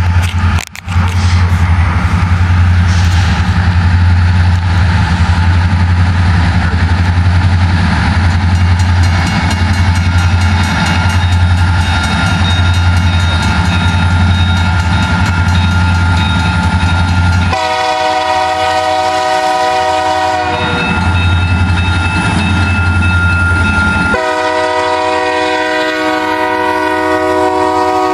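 Diesel freight locomotives approaching with a steady low engine drone. Past the halfway point the lead locomotive's multi-chime air horn sounds two long blasts, the second running to the end.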